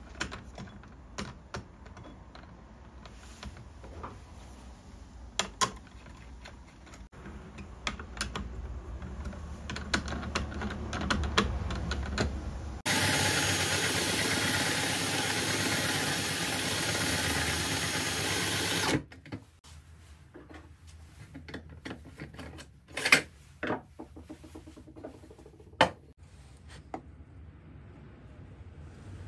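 A drill driver spins a coarse 60-grit whetstone, with a chisel being ground on it. It makes a loud, steady grinding noise for about six seconds in the middle, starting and stopping abruptly. Before and after it there are scattered clicks, knocks and rubbing as the tools and jig are handled.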